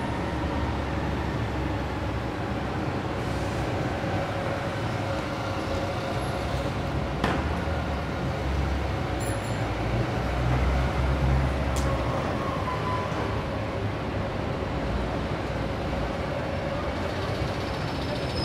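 Road traffic on a city boulevard: a steady low rumble of vehicle engines and tyres, swelling louder about ten seconds in as a vehicle passes close. Two sharp clicks stand out, one about seven seconds in and one about twelve.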